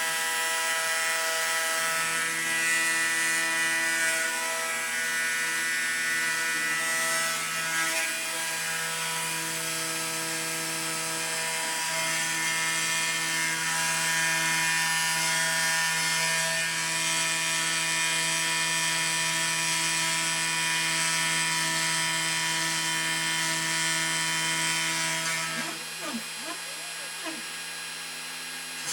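Home-built CNC engraving and PCB milling machine running a cut, with a steady whine from its spindle and drive motors. About three seconds before the end it gets a little quieter and short rising and falling tones come through.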